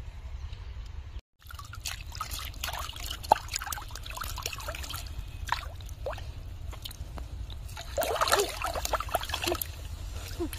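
River water splashing and trickling close to the microphone, with many small drips and plops. About eight seconds in, the splashing grows louder and busier as a large hooked fish thrashes at the surface.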